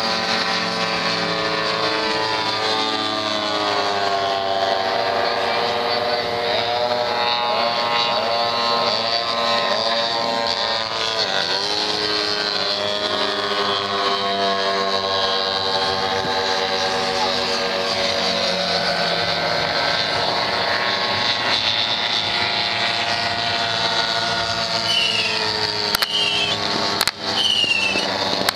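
Several propeller aircraft engines droning together, their pitch sliding up and down as the planes manoeuvre and pass. A few sharp bangs come near the end.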